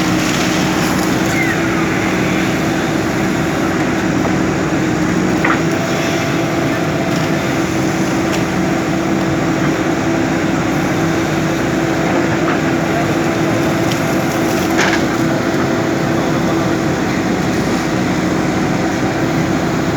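JCB backhoe loader's diesel engine running steadily at working revs, with a couple of sharp knocks, one about five seconds in and one near fifteen seconds.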